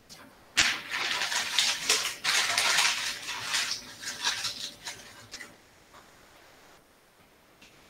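Crinkling, crackling rustle close to the microphone, starting about half a second in and dying away after about five seconds.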